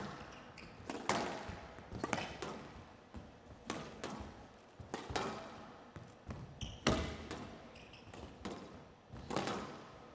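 Squash rally on a glass court: the ball struck by the players' rackets and hitting the court walls. Sharp hits with an echo, about two a second.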